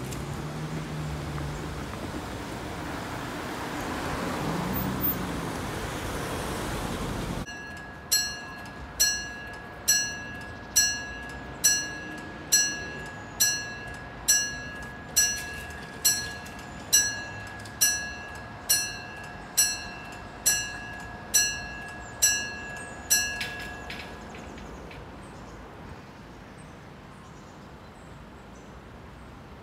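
Road traffic passing, then a level-crossing mechanical bell striking evenly about once a second, some sixteen strikes, warning that the crossing is closing while the barriers lower. It stops once the barriers are down.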